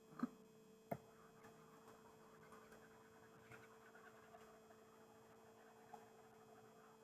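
Near silence: a faint steady electrical hum, with a single soft click about a second in.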